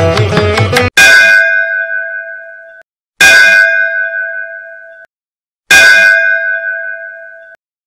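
Instrumental music stops abruptly about a second in. Then a bell rings three times, about two and a half seconds apart. Each clear ringing note fades and is cut off short after about two seconds.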